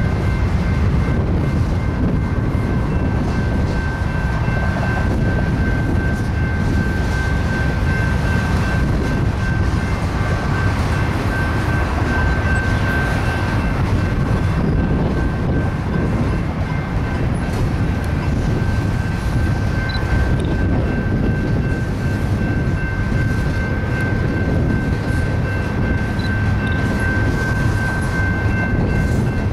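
Double-stack container train rolling past, a steady rumble of wheels on rail with a constant high-pitched whine over it.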